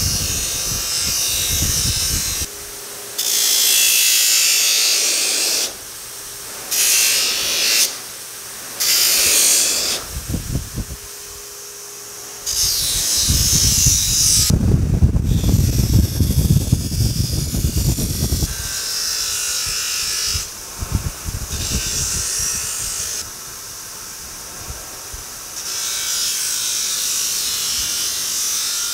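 Pedestal polisher fitted with a large wire wheel, stripping paint off a metal hood moulding strip in repeated passes. Loud hissing scrapes of a few seconds each alternate with the motor's steady hum as the strip is lifted off. The heaviest, roughest grinding comes about halfway through.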